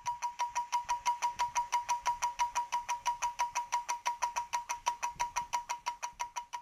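Mechanical stopwatch ticking rapidly and evenly, about six ticks a second, each tick with a slight ringing tone, dying away near the end.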